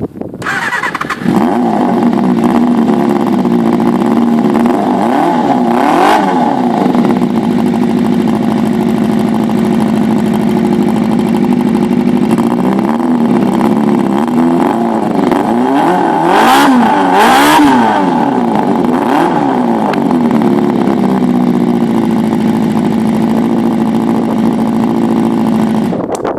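Suzuki Bandit motorcycle's inline-four engine catching about a second in and idling steadily, its throttle blipped into quick revs several times, the sharpest two close together about two-thirds of the way through.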